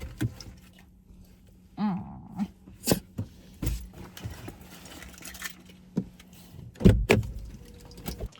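A series of knocks and clicks, the loudest a double knock near the end, with a short squeaky note about two seconds in.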